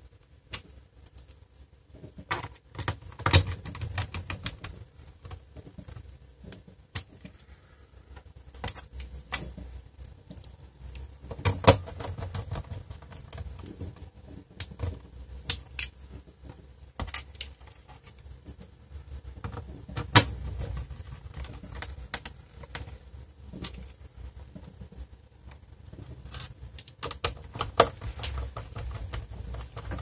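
Irregular clicks and taps of small screws and a screwdriver against a laptop's plastic base as the screws are fitted back in, with a few sharper knocks scattered through.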